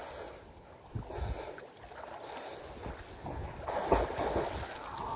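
Water splashing and sloshing as a swimmer strokes through a rock pool, with the loudest splash about four seconds in as he throws water up behind him.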